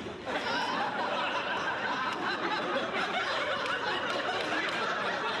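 Studio audience laughing, swelling up just after the start and going on without a break.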